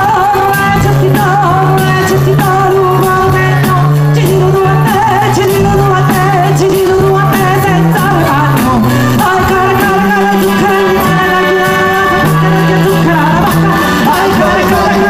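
Live band music: a woman sings lead over a steady beat from drum kit and hand-struck frame drums, with electric guitars and bass.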